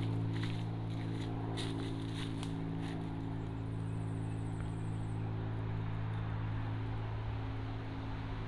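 A steady low mechanical hum with several held tones, like an engine running, under footsteps crunching on dry leaves during the first few seconds.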